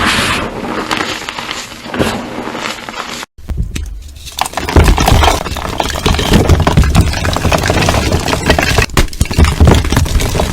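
Slime mixed with gym chalk being squeezed and pressed by hand, giving dense crackling and crunching. The sound drops out for a moment about a third of the way in.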